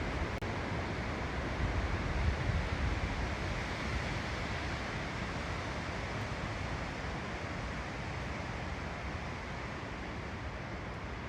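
Storm wind rushing through woodland trees in a steady hiss, with gusts buffeting the microphone in a low rumble that is strongest in the first few seconds and eases a little later.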